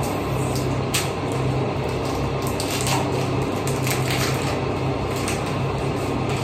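Cadbury Dairy Milk chocolate bar's wrapper crinkling and crackling in irregular bursts as it is pulled open, over a steady low hum.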